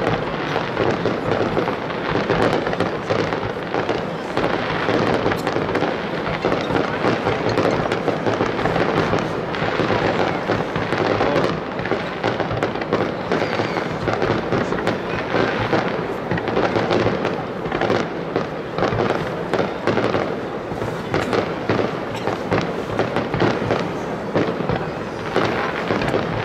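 Aerial fireworks display in a continuous barrage, shells bursting one after another with dense crackling and no pauses.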